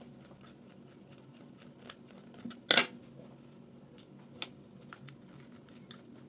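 Small scattered clicks of a screwdriver and a plastic hair clipper housing being handled as the housing screws go in, with one sharp clack about two and a half seconds in.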